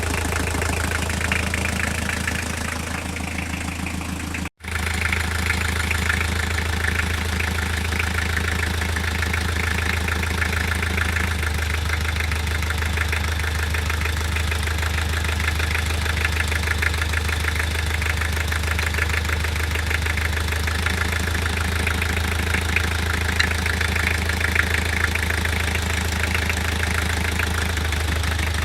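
Toyota diesel engine idling with a steady knock running through it, a knock whose cause the owner cannot place. The sound breaks off for an instant about four and a half seconds in.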